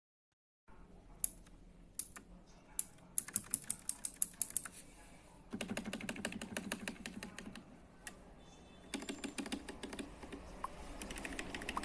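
Mechanical keyboard with KTT Kang White V3 linear switches being typed on: a few single keystrokes, then fast runs of keystrokes about three seconds in, again from the middle, and once more near the end.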